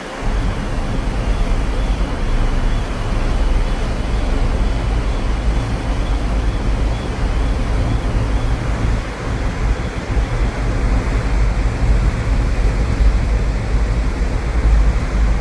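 Steady low rumble with a rushing noise over it, as of a ferry under way with wind buffeting the microphone.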